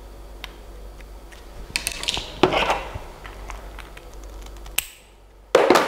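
Small metal handling sounds from trimming network-cable wire ends at a shielded metal keystone jack with electrician's pliers: faint ticks, a louder noisy stretch about two seconds in, then a sharp click and a loud burst near the end.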